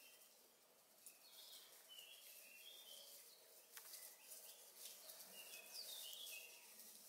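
Faint birdsong: two short runs of high chirping phrases, one about a second in and another near the end, over quiet forest ambience with faint rustles and ticks.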